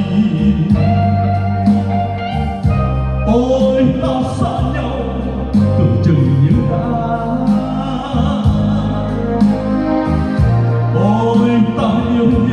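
A Vietnamese ballad-style song playing loudly over a large event line-array sound system, with a steady bass beat under a gliding melody line.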